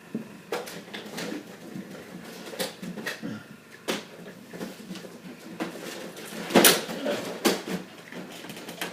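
Irregular clicks, knocks and clatter of plastic and metal printer parts being handled and pulled apart during disassembly, with one louder knock about two-thirds of the way through.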